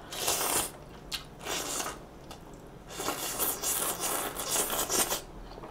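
A person slurping stir-fried spicy noodles off a metal tray: two short slurps in the first two seconds, then a longer run of slurping from about three to five seconds in.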